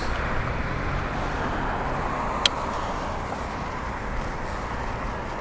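Steady rush of wind and road noise while riding a bicycle along a street, with one sharp click about halfway through.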